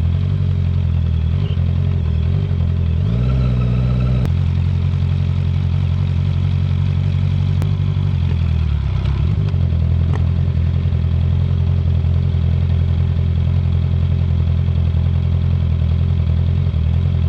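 Honda CB650R inline-four with a full Akrapovic titanium exhaust running at steady revs, with a short rise in pitch about three seconds in that ends abruptly about a second later, and a brief dip and recovery around nine seconds.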